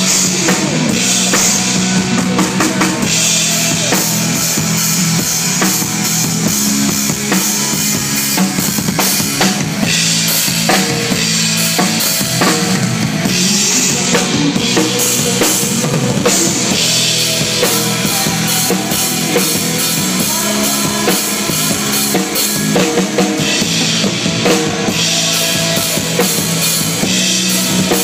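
Live rock band playing through a PA during a sound check, the drum kit loudest in the mix with hits close together throughout.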